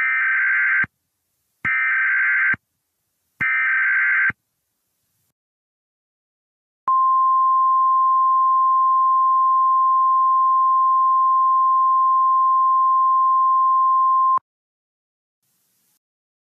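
Emergency Alert System SAME header: three bursts of digital data tones, each just under a second long with short gaps between. A couple of seconds later comes a single steady attention tone, held for about seven and a half seconds before it cuts off.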